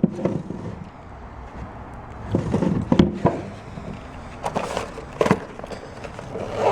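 Handling noise from rummaging through a jewelry cabinet: scattered knocks, clicks and scrapes of drawers and small items being moved, with a few sharper taps about two and a half seconds in and around five seconds in.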